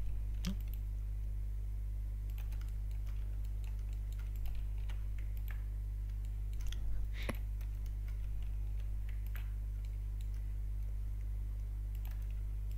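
Scattered computer keyboard key presses and mouse clicks, the sharpest about half a second in and again a little past seven seconds, over a steady low hum.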